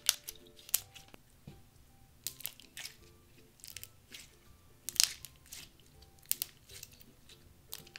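Clear slime with fruit-slice confetti being squeezed and squished in the hand, giving a string of sharp, wet pops and clicks, about ten of them, the loudest right at the start and about five seconds in.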